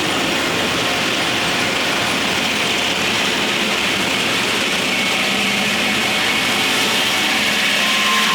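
Steam-powered sawmill running: a loud, steady rushing noise, with a faint whine coming in about five seconds in.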